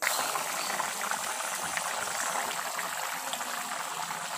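Chicken leg pieces in tomato gravy bubbling in a kadai on the boil, a steady bubbling with many small pops.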